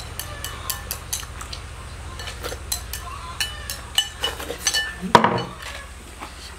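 Chopsticks clicking and scraping against a glazed rice bowl as rice is shovelled into the mouth: many quick, light clinks, some with a short ring. A louder clunk comes about five seconds in.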